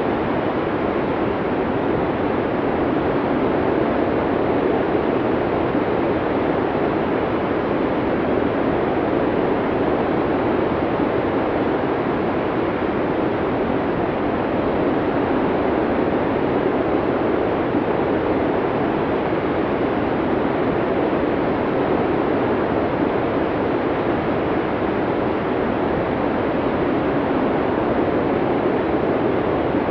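Snowstorm wind blowing as a steady, even rush of noise, with no gusts, breaks or changes in level.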